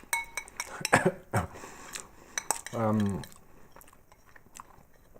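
Fork clicking and scraping against a food dish in a few sharp clinks, followed about three seconds in by a short falling "hmm" from the taster.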